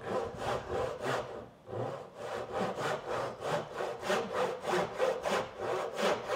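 Dovetail saw cutting a half-blind dovetail's pin cheeks in quick, even back-and-forth strokes, about three a second, with a brief pause about a second and a half in.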